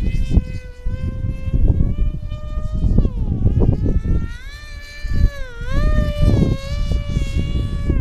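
Electric motor and propeller of a small flying wing whining in the air, its pitch wavering and dipping twice. Loud gusts of wind buffet the microphone in irregular bursts.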